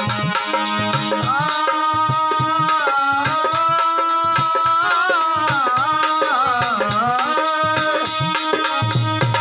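Instrumental interlude of devotional bhajan music: a melody line that holds notes and bends in pitch around the middle, over a steady hand-drum rhythm.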